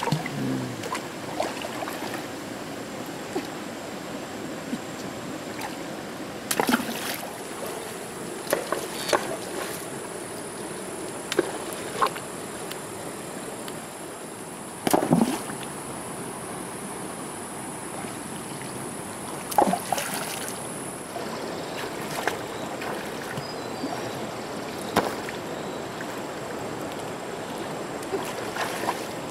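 Shallow stream running over stones, with sharp splashes and knocks now and then as river stones are lifted and set down in the water.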